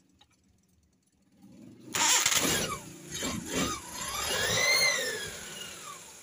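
Suzuki Carry 1.0's four-cylinder petrol engine starting about two seconds in, then revved up once, its pitch rising to a peak and falling back as it settles. It is a test run after the ignition leads that leaked spark and made it misfire were repaired.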